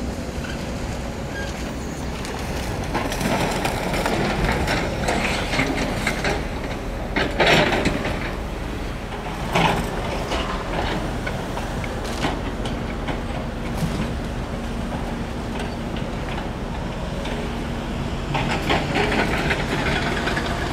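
Excavator working a pile of flood debris: a steady diesel engine rumble with irregular clattering and crashing of debris, loudest in the middle.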